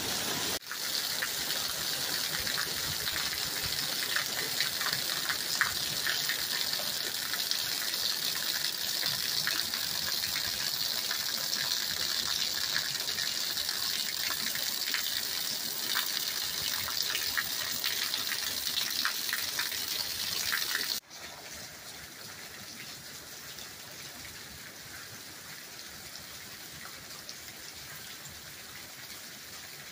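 A stream of rainwater pouring down and splashing onto wet hard ground, a loud steady hiss of splashes. About twenty seconds in it cuts to a softer, even sound of rain falling on a gravel yard.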